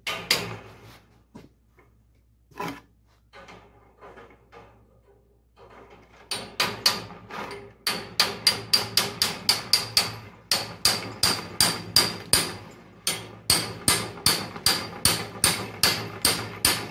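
Hammer blows on the tubular steel frame of a '51 Chevy truck bench seat, driving its two cut halves together over a pipe pin. A few scattered taps at first, then from about six seconds in a steady run of ringing metal-on-metal blows, about three a second.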